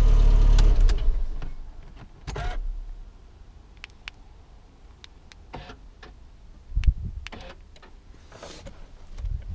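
Mercedes C200 Kompressor's supercharged four-cylinder engine idling, then switched off about a second in; it stops abruptly. Afterwards come scattered clicks and a few knocks from the key and the car interior, with one heavier thump near the end.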